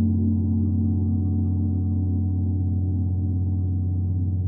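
A gong ringing on after a strike, with deep, many-layered low tones that hold steady and begin to waver and pulse about halfway through.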